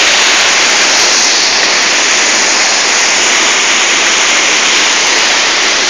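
Large waterfall's water crashing down in a loud, steady rush.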